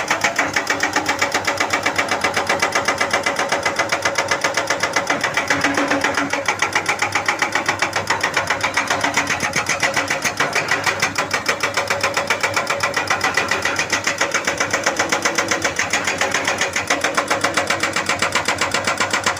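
Excavator-mounted hydraulic breaker hammering steadily in rapid, even blows, many a second, over the excavator's running engine.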